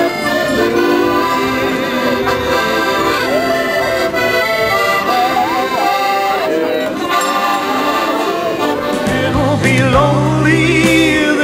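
Rossini piano accordion playing a cheerful tune, melody over sustained chords. From about nine seconds in, a heavier bass line and a wavering singing voice join.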